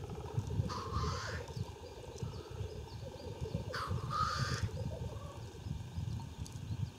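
Male black grouse lekking: a continuous low bubbling coo runs under two harsh hissing sneeze-calls, one about a second in and one about four seconds in.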